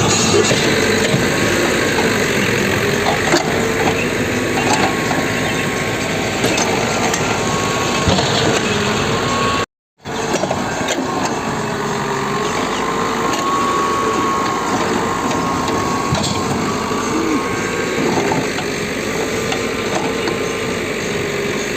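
Diesel engines of a JCB backhoe loader and tractors running, their pitch wavering up and down under scattered knocks and clatter. The sound cuts out briefly about ten seconds in.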